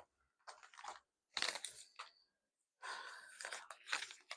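Packaging crinkling and tearing in several short bursts as a parcel is unwrapped by hand.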